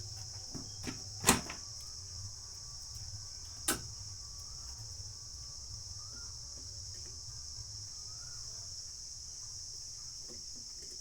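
A few sharp clicks of small tools being handled at a workbench while a new amplifier IC is soldered onto a circuit board, the loudest just over a second in and another near four seconds in. Under them run a steady high-pitched hiss and a low hum.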